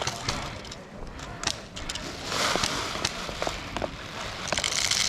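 Scattered single sharp clicks at irregular intervals over a rustling hiss that swells twice.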